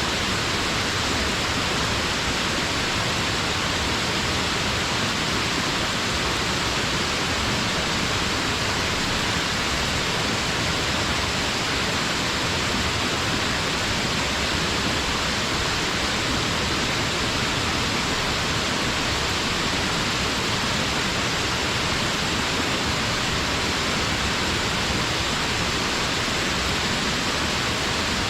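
Waterfall: water falling and crashing without a break, a dense steady rush.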